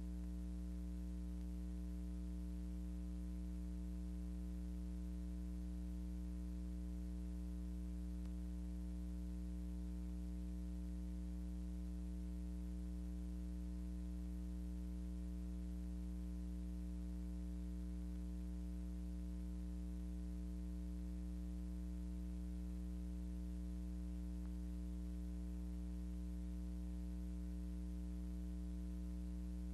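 Steady electrical mains hum with a ladder of overtones and a faint hiss, unchanging throughout; no sound of the rockets themselves.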